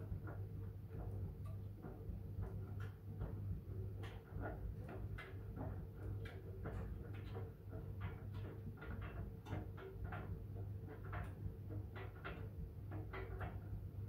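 Miele W1 WCR860WPS front-loading washing machine tumbling a wet load: a steady low motor hum with irregular light clicks and taps, several a second, as the laundry turns in the drum.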